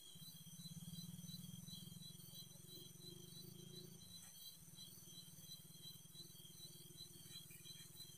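Night insects chirping, a fast pulsing high-pitched trill that keeps going, over a low steady buzz that dips briefly about four seconds in.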